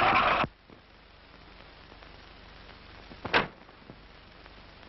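A delivery van's noise, its tyres sliding to a stop, cuts off suddenly about half a second in, leaving the faint hiss of an old film soundtrack. A single short sharp knock comes about three seconds later.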